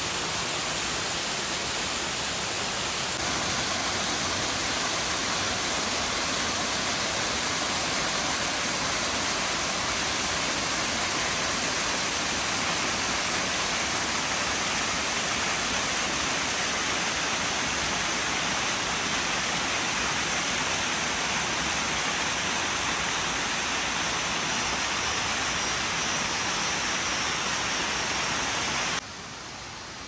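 Waterfall in heavy rainy-season flow: a loud, steady rush of falling water. The level steps up a few seconds in and drops suddenly near the end.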